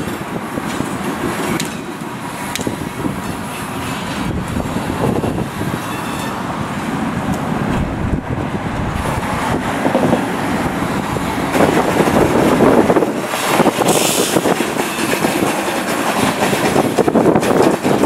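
Freight train led by an EMD GP9 diesel locomotive running past, growing gradually louder, with scattered clicks of wheels over the rails.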